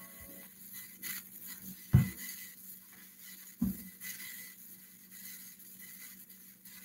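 Faint room noise with a steady low hum, broken by two brief low thumps about a second and a half apart.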